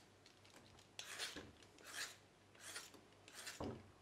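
A hand vegetable peeler scraping down a daikon radish, a stroke roughly every 0.7 s, faint. There is a soft knock near the end.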